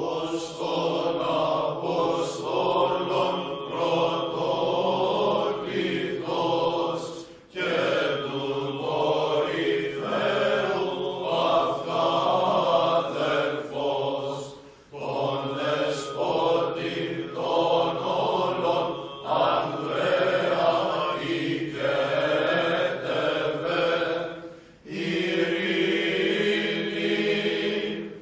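A choir chanting in long, sustained phrases. It breaks briefly about 7, 15 and 25 seconds in.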